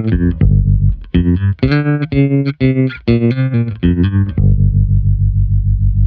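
Electric bass guitar played through a Boss TR-2 tremolo pedal with the effect on: a run of plucked notes, then, over the last second and a half, a low held note whose volume pulses quickly, about five times a second.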